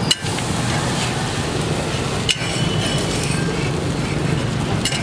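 A dosa sizzling on a flat griddle, with a metal spatula clinking and scraping against the griddle three times, over a steady background hum.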